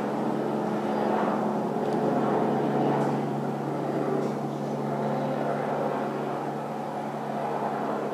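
Helicopter overhead, a steady drone that swells and eases slightly and grows a little fainter toward the end.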